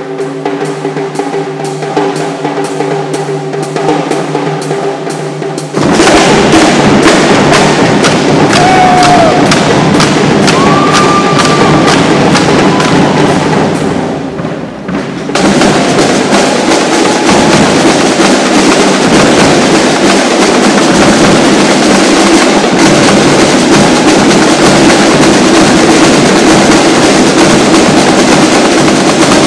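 Marching drumline playing snare and bass drums: a softer passage for about the first six seconds, then loud, fast full-ensemble drumming, with a brief drop about halfway through before it comes back in at full volume.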